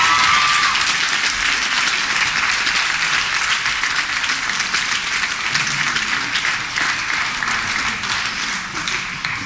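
Audience applauding: dense, steady clapping that slowly fades toward the end. The last note of the music dies away in the first second.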